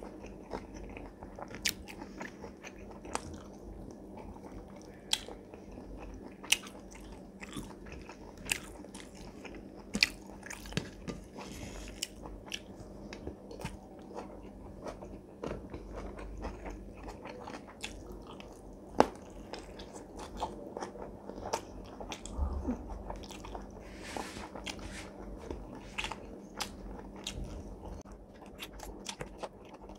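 Close-miked eating by hand: wet chewing and lip smacking of rice and fish curry, with irregular sharp clicks and crunches, one louder snap about two-thirds of the way through.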